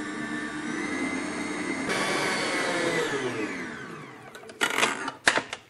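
Electric stand mixer running with a steady whine as its beater kneads semolina and ghee maamoul dough, then switched off about three seconds in, the pitch falling as the motor winds down. A few sharp clicks and knocks follow near the end.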